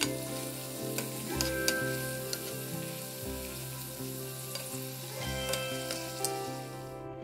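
Stuffed bitter gourds (karela) frying in hot oil in a pan, sizzling steadily, with a few sharp clicks of metal tongs against the pan as they are turned. Soft background music plays underneath, and the sizzle cuts off just before the end.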